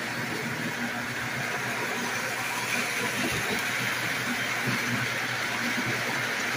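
Lionel three-rail O-gauge model train running past: a steady motor hum and the rolling of its wheels on the track, growing a little louder from about three seconds in as the cars go by close at hand.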